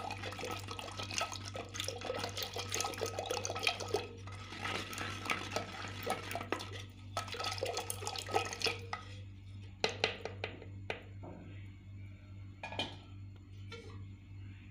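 Thick curd being churned by hand with a wooden stick in a clay pot: continuous wet sloshing and stirring with small clicks of wood on the pot. After about nine seconds it thins to a few separate knocks.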